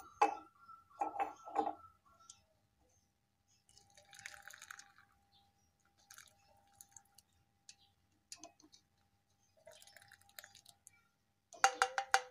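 Hot herbal decoction poured from a pan through a strainer into a glass, dribbling in short spells. Utensils knock against the glass a few times at the start, and there is a quick run of clinks near the end.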